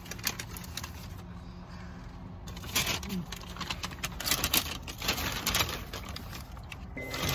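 Paper fast-food bag and wrappers rustling and crinkling in irregular bursts as the food is handled, over a low steady hum.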